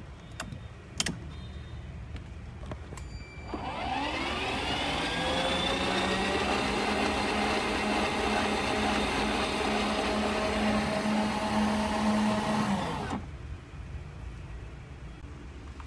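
Electric drive motor and gearbox of a 12V kids' ride-on car spinning a wheel: a couple of clicks about a second in, then the motor whine rises in pitch, runs steadily for several seconds and winds down to a stop.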